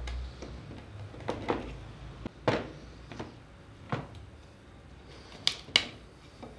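Claw hammer knocking and levering against a wooden slat, prying it loose from a workbench jig: a series of irregular sharp wooden knocks and clunks, the sharpest two close together near the end.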